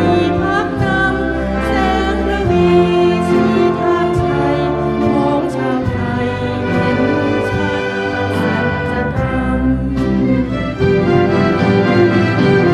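Orchestral music: an instrumental passage of a Thai song, with sustained chords and light regular percussion.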